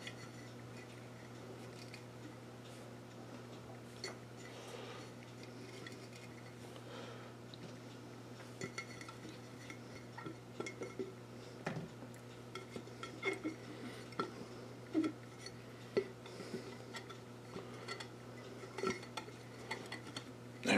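Whole cucumbers being packed upright into a glass jar by hand: faint, scattered knocks and clinks of cucumbers against the glass, more frequent in the second half.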